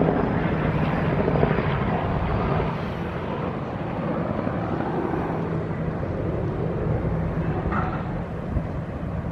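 Steady low drone of a passing RoRo cargo ship's machinery, with a constant low hum under a rushing noise.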